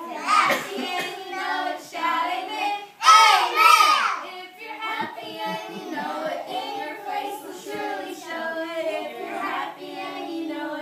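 Two young girls singing together, with loud passages about half a second in and around three seconds in, then steadier held notes.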